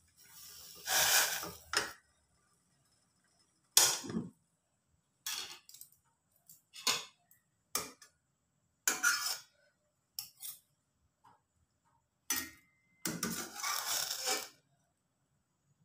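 Steel spoons clinking and scraping against a stainless steel cooking pot in short separate bursts with pauses between, with a cloth rubbing over the pot near the start.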